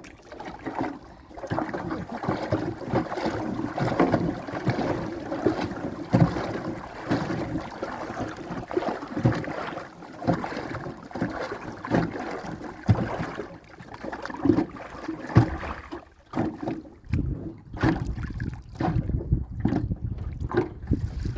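Irregular knocks, clatter and water sounds of work aboard a small boat, with wind rumbling on the microphone in the last few seconds.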